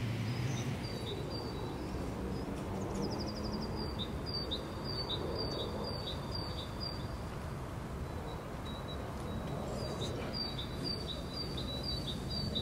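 A songbird repeating a short, high two-note call about twice a second, in two runs with a pause of a few seconds between them, over a steady low outdoor rumble.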